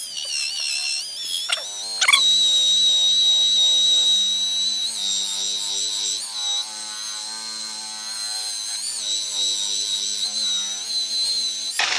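Rotary polisher with a wool pad buffing a plexiglass window: a steady high motor whine that climbs in pitch over the first two seconds as the machine comes up to speed, then holds.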